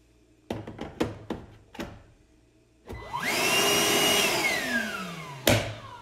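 Milwaukee M18 2-gallon cordless wet/dry vacuum: a few clicks as the M18 battery pack is snapped into its bay, then the vacuum's motor is switched on, whines up to speed, runs for about a second, and winds down after it is switched off. There is a sharp knock near the end.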